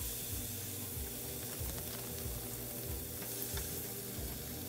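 Marinated beef short ribs sizzling on a hot Philips smokeless indoor grill, a steady sizzle with scattered small crackles as the strips are laid on the grill plate.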